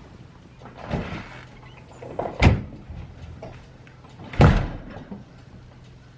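Three knocks or bangs: a softer one about a second in, then two loud, sharp ones about two seconds apart.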